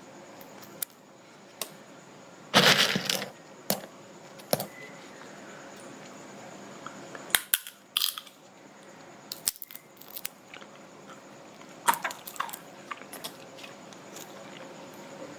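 A person cracking kuaci (roasted seeds) between the teeth: scattered sharp cracks of the shells, with a longer, louder crunch about three seconds in and a cluster of cracks around twelve seconds.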